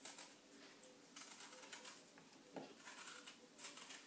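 A small blade peeling and coring an apple quarter: a series of faint, short scraping and cutting strokes, roughly one a second.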